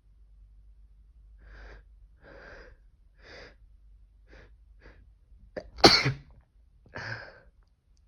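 A person's sneeze build-up: a run of short, hitching breaths in, about one a second, then one loud sneeze about six seconds in, followed a second later by a shorter, weaker burst.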